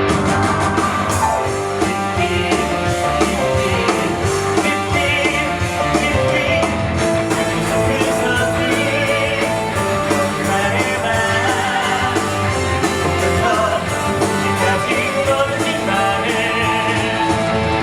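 Live musical-theatre encore number: singing over a rock-style band backing with guitar, played as a rousing curtain-call song.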